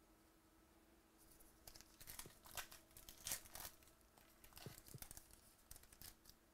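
A foil trading-card pack wrapper being torn open and crinkled by hand: a run of sharp crackles starting about a second in and ending shortly before the end.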